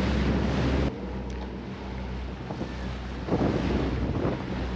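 Motor boat underway: steady low engine drone under water rushing past the hull and wind buffeting the microphone. The sound drops a little about a second in, and the water wash swells louder again in the second half.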